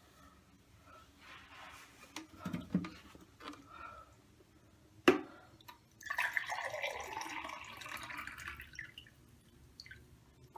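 Water pouring for about three seconds, its pitch falling as it goes, after a sharp click about five seconds in; a few short low sounds come earlier.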